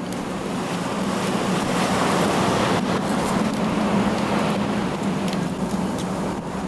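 Ocean surf washing on a beach: a broad, steady rush that swells about two seconds in and eases off again, over a faint steady low hum.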